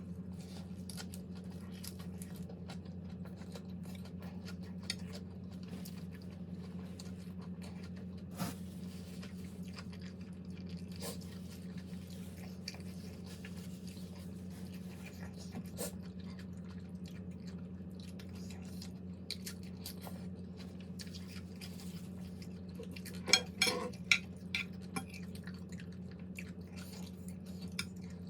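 A person eating, with faint chewing and occasional light utensil clicks over a steady low hum. About twenty-three seconds in comes a quick cluster of louder clinks of cutlery against a dish.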